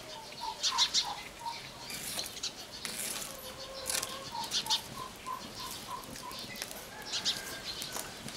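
Birds calling: two runs of short, evenly repeated notes, about three a second, with quick high chirps in between.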